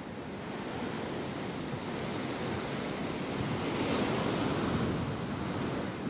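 Surf washing onto a sandy beach, with wind on the microphone; the wash swells louder about four seconds in as a wave breaks.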